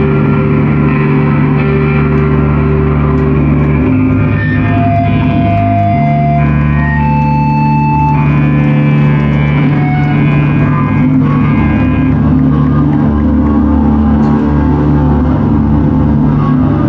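Live rock band playing loud, distorted electric guitars over a low sustained bass drone. The notes are long and held, and the chord changes every few seconds.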